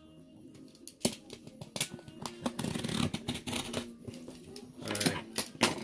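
Packing tape on a cardboard box being cut and the box handled: scraping with several sharp clicks and taps, over faint background music.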